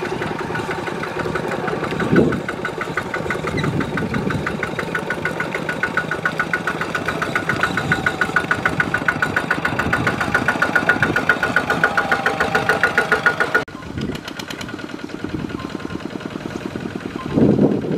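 Single-cylinder diesel engines of two-wheel walking tractors chugging in a fast, even rhythm while working through deep mud. The sound drops suddenly about two-thirds of the way through, where a second tractor's engine carries on, and swells briefly near the end.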